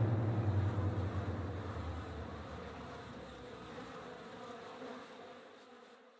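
Buzzing of a bee as a logo sound effect, with a low hum under it. It fades away gradually, to silence by the end.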